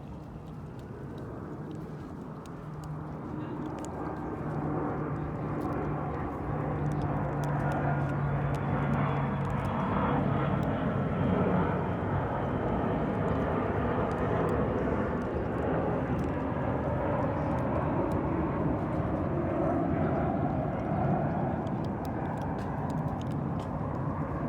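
A passing engine drone, typical of a low aircraft overhead. It swells slowly over the first several seconds, holds loud through the middle and eases off a little near the end.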